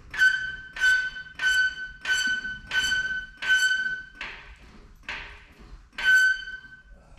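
Rhythmic back-and-forth scraping strokes, about one every two-thirds of a second, most of them carrying a sharp high-pitched squeak; the squeak drops out for two strokes near the end.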